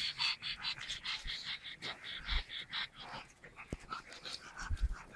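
A dog making quick, rhythmic pulsing sounds, about five a second, that fade out about three seconds in.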